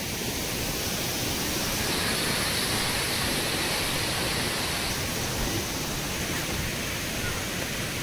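Waterfall's water rushing, a steady dense hiss that holds at one even level.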